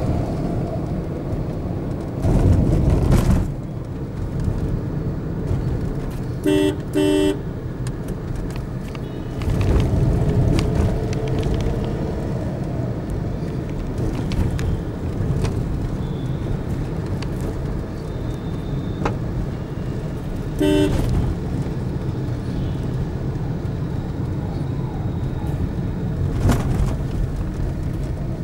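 City road traffic heard from a moving car: a steady low rumble of engine and road noise, with vehicle horns giving two short toots about a quarter of the way in and one more about three-quarters of the way through.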